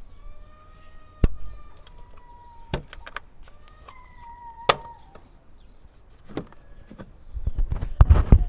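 Sharp plastic clicks, a few seconds apart, from the clips of a car's air filter box being worked open, then loud knocking and rustling near the end as the housing and filter are handled.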